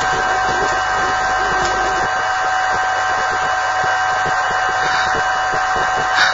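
Steady hum and hiss with a constant high whine, the noise of a worn old video sound track; the low rumble beneath it drops away about two seconds in.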